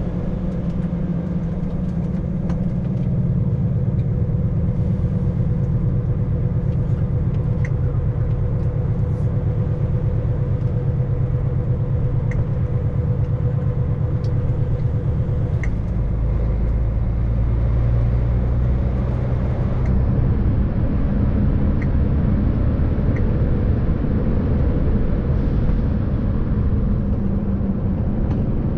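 Steady engine and road rumble of a vehicle being driven, heard from inside the cab, with a faint steady hum and a few small ticks.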